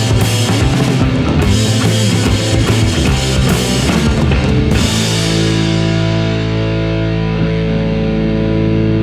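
Background rock music with drums and guitar; about five seconds in the drumming stops and a held chord rings on.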